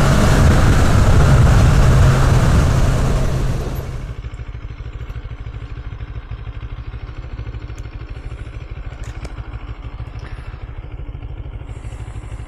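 CFMOTO 650NK's parallel-twin engine running on the move, with loud wind rush over it. About four seconds in, the sound drops abruptly to the bike idling with a steady low pulse.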